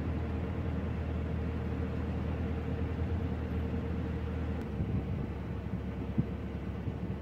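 Narrowboat diesel engine running steadily under way: a low drone with a constant hum over it. The drone changes about four and a half seconds in, and there is a single brief knock about six seconds in.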